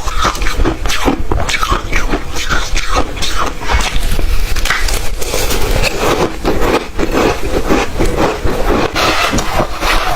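Close-miked chewing of crunchy ice: a fast, uneven run of crisp crunches, one after another.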